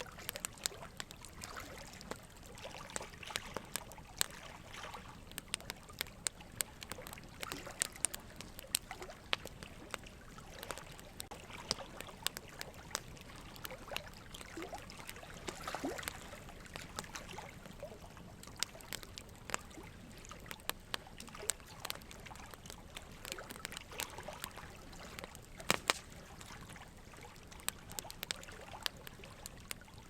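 Steady trickling water with many small irregular clicks and drips scattered through it.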